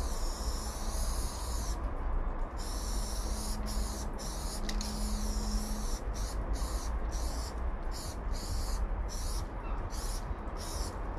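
Aerosol spray-paint can hissing in spurts as paint goes onto a freight wagon's side. It gives a few longer sprays over the first half, then quick short bursts, about one or two a second, in the second half.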